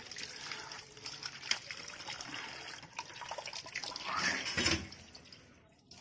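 Water running from a pipe and splashing into a steel bowl as crabs are rinsed by hand, with small clicks and one louder burst just past four seconds.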